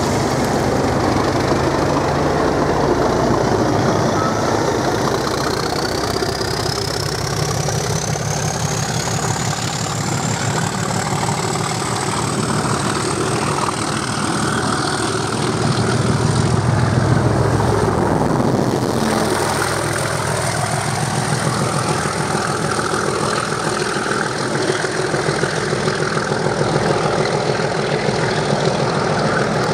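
Class 37 diesel locomotives pulling away under power: their English Electric V12 engines running hard with a heavy low rumble, and a turbocharger whistle that rises steadily in pitch over the first several seconds, then holds. The rumble is loudest a little past the middle.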